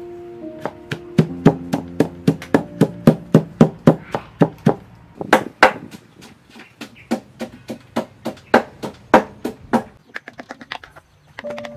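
Wooden pestle pounding herbs into a paste in a deep wooden mortar: hollow wooden thuds about three a second, slowing to about one and a half a second after the middle, then a run of light quick taps near the end. Soft background music plays under the first few seconds and comes back at the end.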